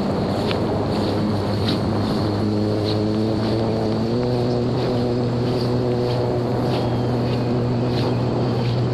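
Homemade radio-controlled seaplane's electric motor and propeller running steadily in flight, a loud hum that steps up slightly in pitch about two and four seconds in as the throttle is opened. Wind rushes over the microphone underneath.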